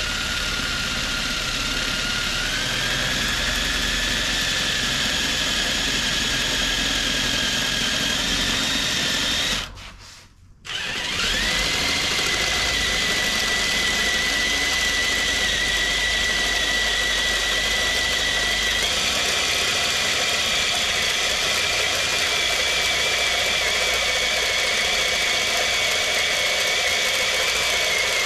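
Handheld power drill with a plain metal bit drilling out the pins of a seat bracket: a steady motor whine under load, its pitch stepping up slightly a couple of seconds in. It stops for about a second around ten seconds in, then runs again.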